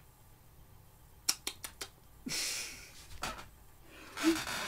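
A few soft clicks, then two short, breathy bursts of air from a person holding back laughter.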